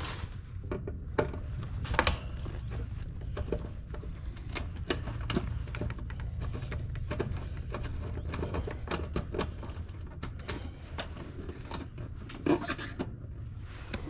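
Irregular clicks, taps and light scrapes of hand tools and metal parts during work on a heat pump's electrical panel, as its contactor is being changed, over a low steady hum. The sharpest clicks come about two seconds in and again near the end.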